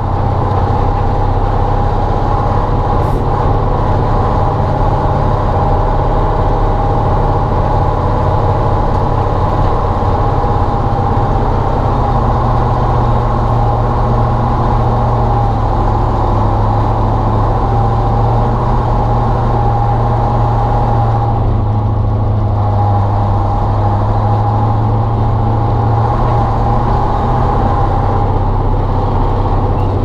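Ural logging truck's YaMZ-238 V8 diesel pulling steadily under load up a hill, with a steady whine over the engine note. The note changes near the end.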